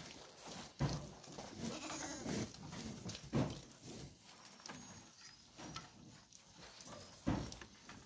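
Goat bleating, with a wavering call about two seconds in, among leaf rustling and three sharp knocks.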